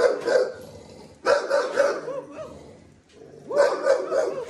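A small dog barking in short, quick runs of two to four high barks, three runs in all, with a brief softer yelp between them.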